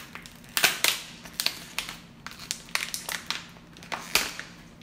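Clear plastic lid being prised off a plastic cake tray: a run of irregular sharp crackles and clicks, loudest about half a second in and again near the end.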